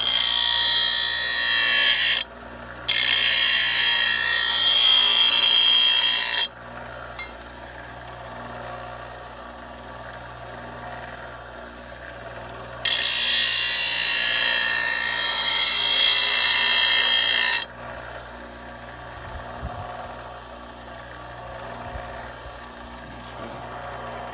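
A power grinder sharpening a steel lawn mower blade, in three loud grinding passes. Two come close together at the start, and a longer one of about five seconds comes about halfway through.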